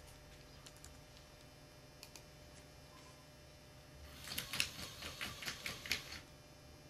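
Small tracked robot driving across a wooden floor: its gear motors and tracks give a clicking, rattling run of about two seconds, starting about four seconds in.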